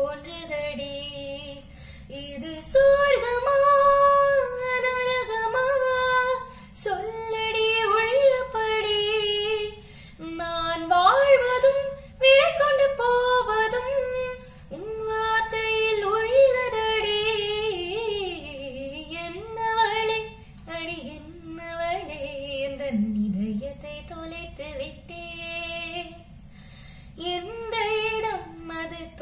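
A girl singing solo with no accompaniment: a slow melody of long held notes with sliding bends in pitch, broken by short pauses between phrases.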